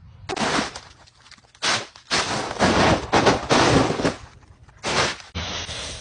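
Dry fallen leaves crunching and crackling in a series of loud, irregular bursts as a cat pounces and burrows through a leaf pile close to the microphone, then a quieter, steadier rustle near the end.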